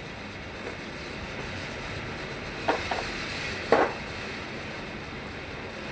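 A few sharp clicks and clinks from a car's wiring harness and tools being handled, the loudest a close pair a little before the middle and a single one just after, over a steady background hiss.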